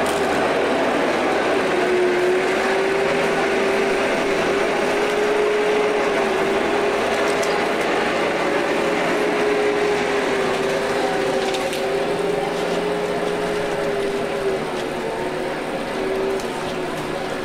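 A motor running with a steady hum that wavers slightly in pitch, over constant background noise.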